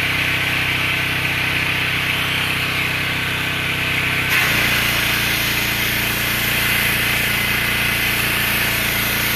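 Pressure-washing rig's gasoline engine running steadily, with the hiss of the high-pressure water spray. About four seconds in, the engine note changes abruptly and holds steady again.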